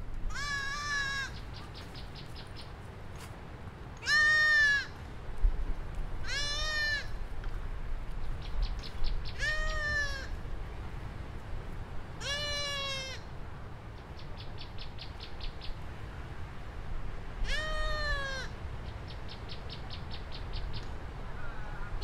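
Goat bleating over and over, about seven calls each roughly a second long, the pitch rising then falling in each. Short runs of rapid, faint ticking come between the calls.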